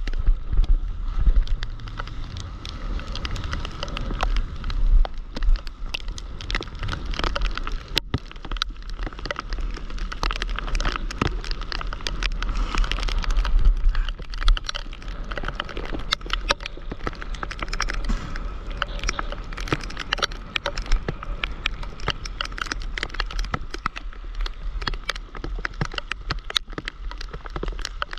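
Rain pattering as a dense, uneven patter of drops on the action camera's housing and on the sea surface. Wind rumbles low on the microphone underneath.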